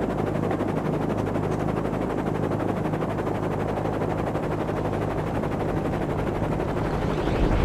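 Helicopter in flight, its rotor chopping in a rapid, even beat over a steady engine drone.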